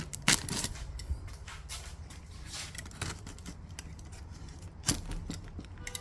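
A delivered package being opened by hand: scattered clicks, scrapes and rustles, with a sharper knock about a third of a second in and another near five seconds in.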